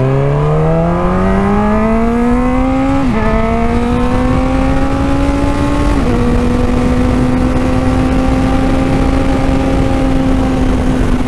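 Honda CB1000R inline-four motorcycle engine accelerating: the engine note rises, drops at an upshift about three seconds in, rises again, drops at a second upshift about six seconds in, then holds steady at cruising speed. A steady rush of wind and wet-road noise runs underneath.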